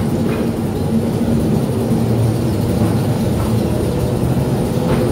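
Electric mine train rolling along the rails: a steady rumble of steel wheels on track with a low hum, from the 1948 electric mine locomotive and its cars.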